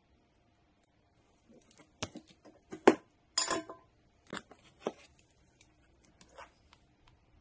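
Hand tools and a reel of solder being set down and picked up on a workbench: a series of short knocks and clicks starting about a second and a half in, the loudest about three seconds in.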